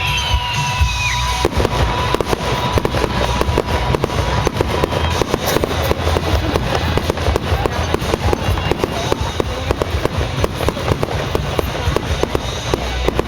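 Fireworks display going off in dense, rapid succession: a continuous run of sharp bangs and crackles over a low rumble, with whistling shells falling in pitch in the first second.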